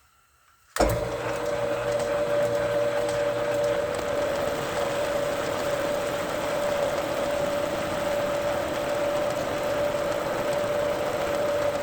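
Metal lathe switched on and running steadily with a constant whine, machining the other face of a 416 stainless steel shifter-knob blank. It starts suddenly about a second in.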